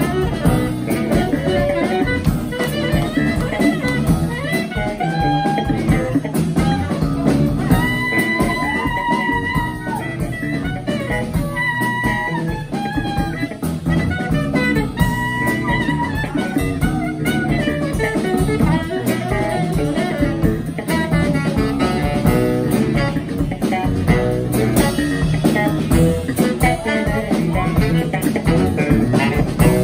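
Live jazz trio playing: saxophone, electric bass and drum kit. The saxophone plays a melodic line with several held notes in the middle over a busy bass line and drums.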